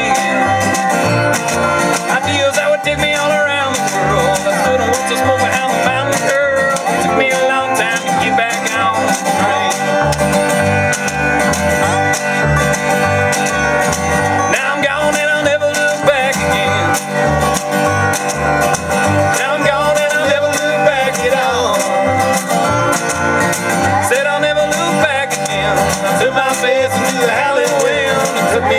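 Country-bluegrass band music: plucked acoustic string instruments playing over a steady, regular bass beat.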